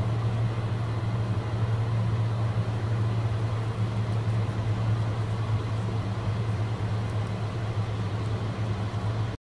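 Aircraft cabin noise in flight: a steady low hum with an even hiss of rushing air above it, cutting off suddenly near the end.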